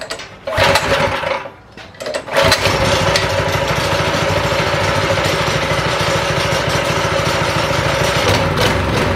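Predator 212cc single-cylinder four-stroke engine being pull-started with the choke on: a first pull about half a second in, then it catches on a second pull about two seconds in and runs steadily on its newly fitted carburetor.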